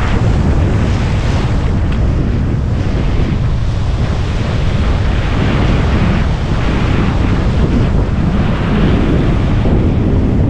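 Surf breaking and washing over a rocky shoreline, heavily buffeted by wind on the microphone, a loud steady rumble that swells and eases gently.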